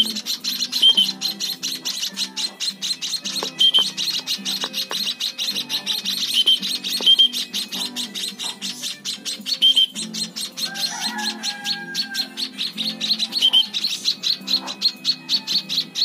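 Young white-headed munias chirping rapidly and continuously, several short high chirps a second, while being hand-fed from a syringe. Background music plays underneath.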